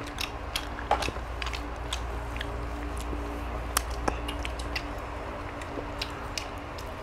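Scattered small clicks and smacks of people eating boiled chicken at a table, over a steady low hum.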